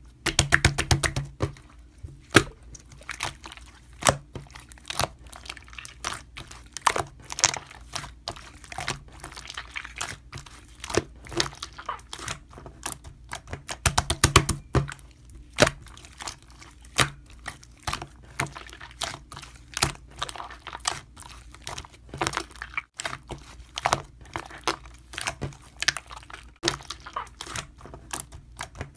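Slime being squished and poked by hand: irregular sticky clicks and crackles, with quick runs of rapid clicking near the start and about halfway through.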